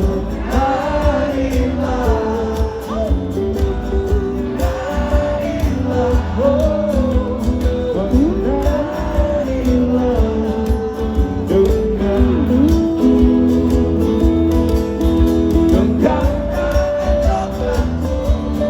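Live band music: a song played with guitar over a heavy bass, with a sung melody.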